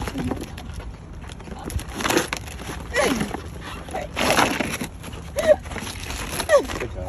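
A husky digging its nose into a paper gift bag, the paper crinkling and rustling in noisy bursts, with several short whining calls that fall in pitch.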